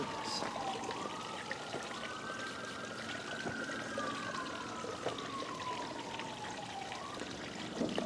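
Molten aluminium being poured from a steel crucible into a hole in the soil: a faint, even hiss with scattered small ticks. A faint tone slowly rises and falls in the background.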